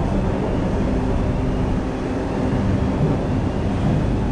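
Road traffic: a steady low rumble and hum of motor vehicle engines close by.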